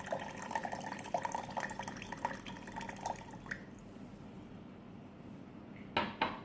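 Distilled water being poured into a container, a steady trickle that stops about three seconds in. A light click follows, and two short knocks come near the end.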